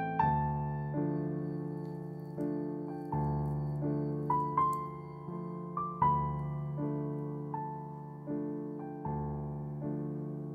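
Background piano music: a slow melody, each note struck and left to ring and fade, about one or two notes a second.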